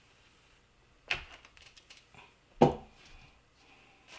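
Clicks and knocks from handling a multi-bit screwdriver and its bit holder. There is a sharp knock about a second in and a louder one about two and a half seconds in, with a few faint clicks between.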